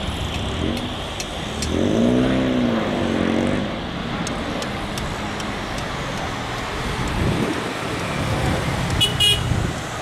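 Boeing 737 airliner landing, its jet engines and wind on the microphone making a steady rumble as it touches down. A wavering horn-like tone sounds for about a second and a half, two seconds in, and a short high chirp comes near the end.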